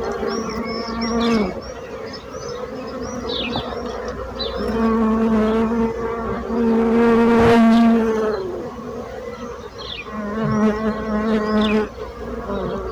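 Bees buzzing in flight, several at once, their hum rising and falling in pitch as they move about. One bee passes close to the microphone about seven seconds in, the loudest moment.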